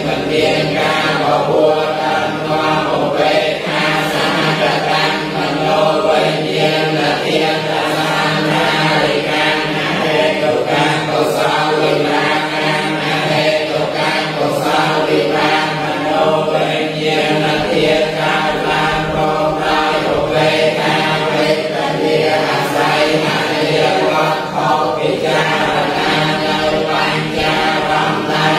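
A group of Buddhist monks and laypeople chanting a text in unison from books: many voices in a steady, unbroken recitation.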